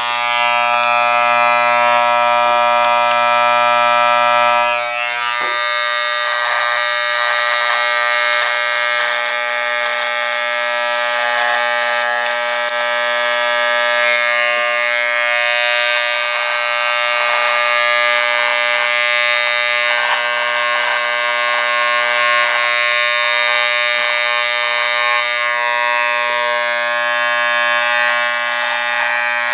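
Electric T-blade hair trimmer buzzing steadily at close range, switched on right at the start, as it trims stubble on the upper lip and chin.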